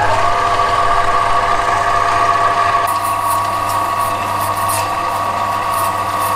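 Small benchtop metal lathe running with a steady motor whine. About three seconds in, a scratchy hiss joins it as the tool cuts into the metal bar-end stock.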